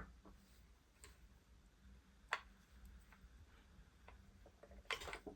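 Near silence with a few faint, scattered clicks and taps from small RC-kit parts being handled, the clearest about two seconds in.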